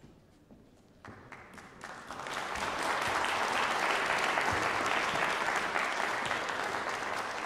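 Audience applauding: the clapping starts about a second in, swells to full strength within a couple of seconds and holds steady.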